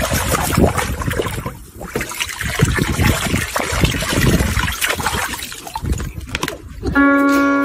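Water splashing and sloshing in a plastic paddling pool as a dog paws and wades through it, in an irregular run of splashes. Near the end, notes from a toy floor piano begin.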